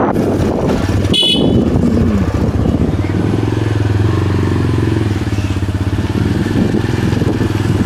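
Motorcycle engine running steadily under way, with a brief sharp high-pitched sound about a second in.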